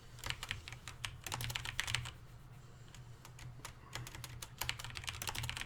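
Typing on a computer keyboard: quick runs of keystrokes in two spells, the first in the first two seconds and the second from about four seconds in, over a low steady hum.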